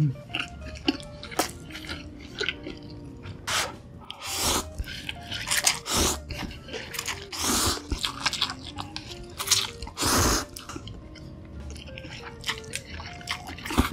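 Close-miked eating: chewing with a full mouth and loud slurps of instant cup noodles pulled up with chopsticks, the longest slurps coming every second or two through the second half, over soft background music.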